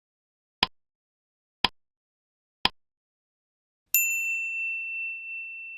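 Countdown-style electronic beep sequence: three short beeps about a second apart, then a longer, higher ringing tone held for about two seconds before it cuts off.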